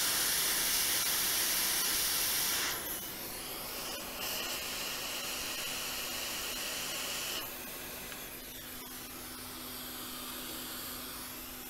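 Quick 861DW hot air rework station blowing, reflowing solder to fit a small resistor on a MacBook logic board: a steady airy hiss with a faint whistle. It stops about three seconds in, comes back about a second later and stops again about seven seconds in, leaving a faint low hum.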